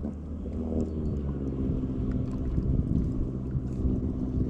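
A motor running steadily: a low, even engine hum, with some wind on the microphone.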